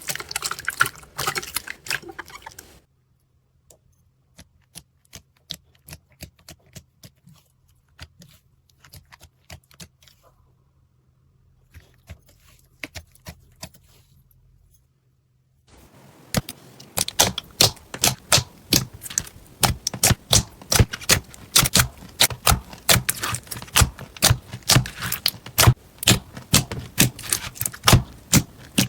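Slime being pressed and poked, giving crackling clicks and pops. They come thick and fast at first, thin out to scattered clicks over a faint steady hum from about three seconds in, and turn rapid and dense again from about sixteen seconds in.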